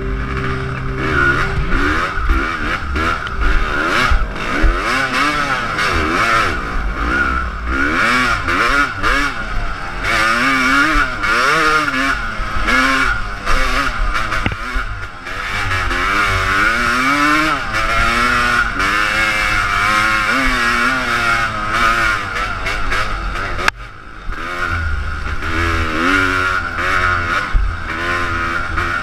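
Dirt bike engine heard from on board, revving up and down as it climbs a rough trail, its pitch rising and falling every second or two. Near the end it cuts back sharply for a moment.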